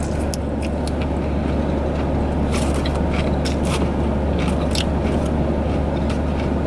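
Close-up chewing and biting of pizza, with irregular wet clicks of the mouth over a steady low hum.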